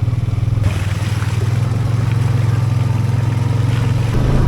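A vehicle engine running steadily at an even, low pitch.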